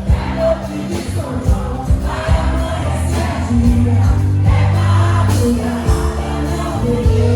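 Loud music with singing over a steady beat and sustained bass notes, playing for a quadrilha junina dance.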